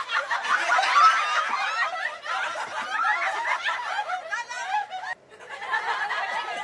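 Several people laughing and chuckling together, their voices overlapping. The laughter breaks off abruptly about five seconds in, then picks up again.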